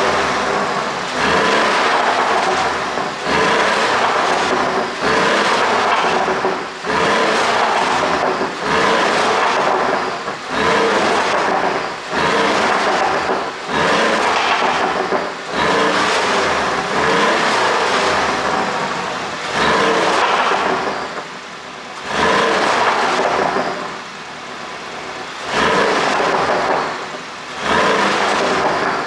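2020 Porsche 718 Boxster S's turbocharged flat-four engine revved again and again, each rise dropping away every second or two into crackling exhaust pops on the overrun. The pops come from an ECU tune run in Sport and Sport Plus mode.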